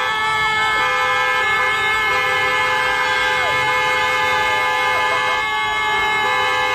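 Several car horns held down together, sounding long and steady at different pitches, with people shouting over them.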